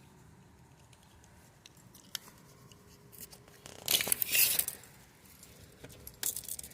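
Steel tape measure's blade sliding with a brief rattle about four seconds in, followed by a few light clicks near the end.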